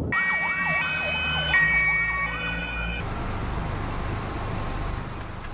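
Emergency vehicle sirens sounding together: a two-tone siren stepping between high and low notes and another siren wailing quickly up and down. They cut off suddenly about three seconds in, leaving a steady low rumble of noise.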